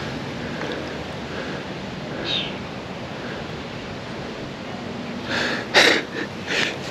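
Steady hiss of wind and small waves lapping in the shallows at a pond's edge, with a brief loud burst of rustling about five and a half seconds in.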